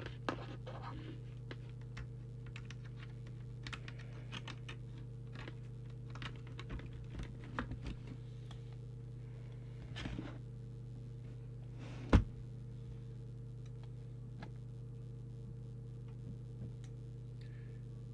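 Small clicks and rattles of a microphone lead and plug being handled and plugged into a CB radio, with one sharp, much louder click about twelve seconds in. A steady low electrical hum runs underneath.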